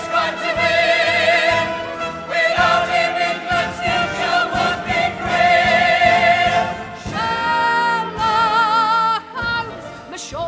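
Theatrical show tune with orchestral backing: voices hold long sung notes with a wide vibrato, the last of them held for about two seconds before it breaks off shortly before the end.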